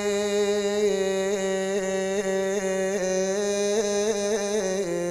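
A man's voice chanting an Iraqi Shia lament (nai) with no accompaniment, holding one long note with quick wavering ornaments and stepping down in pitch near the end.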